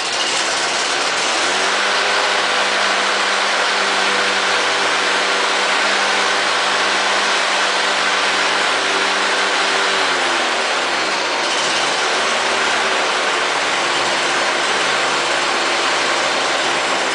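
Lawn Boy walk-behind mower engine running steadily just after starting, picking up speed about a second in, sagging briefly about ten seconds in and then settling again. It runs on its own without starting fluid, its gummed-up carburetor now cleaned.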